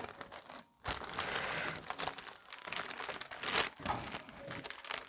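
Plastic packaging crinkling and rustling irregularly as it is handled and folded around kit parts.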